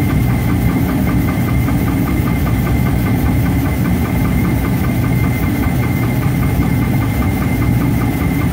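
Shop machinery running steadily: a low mechanical rumble with a constant high whine and a rapid, regular ticking.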